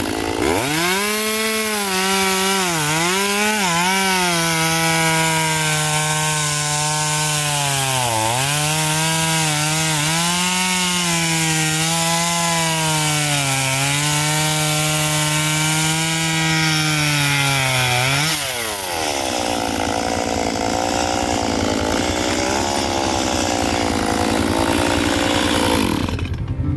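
Stihl MS 192 T two-stroke top-handle chainsaw revving up and cutting through a log, its engine note dipping each time the chain bites into the wood. About 18 seconds in the throttle is released and the saw drops back to idle.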